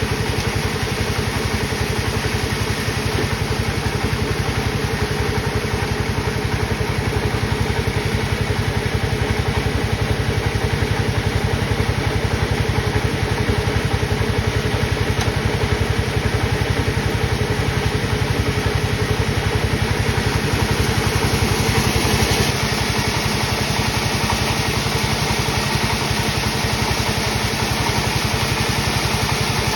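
Sawmill machinery running steadily with a fast, even engine pulse. It grows a little louder and brighter about two-thirds of the way through, then drops back suddenly.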